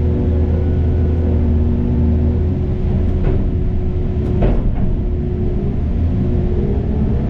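A heavy machine's engine running steadily, with a few knocks about three and four and a half seconds in.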